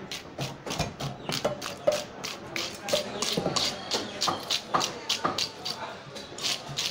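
Pieces of sea bass being cut quickly on a boti, the fixed curved floor blade: a rapid run of sharp cutting strokes, about four a second.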